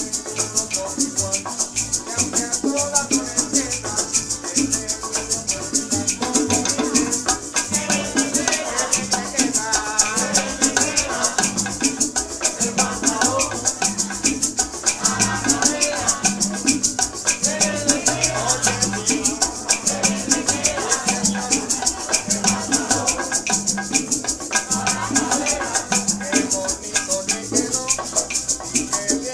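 Recorded Cuban dance music: maracas shaking in a fast, steady rhythm over plucked-string lines and a bass line.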